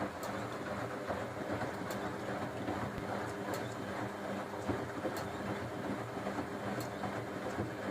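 LG washing machine running, a steady mechanical hum and rumble with a faint click about every second and a half as the drum turns.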